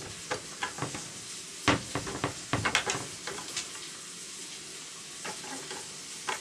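A dog tugging with its mouth at a cloth tied to a wooden cabinet door handle: irregular soft clicks, rattles and rustles, busiest in the first half and sparser after.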